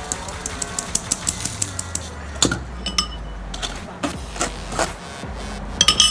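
A kitchen sieve being shaken and tapped over a bowl to sift the dry cake ingredients: quick rapid clicking at first, then a run of separate sharper knocks, with a quick cluster of them near the end.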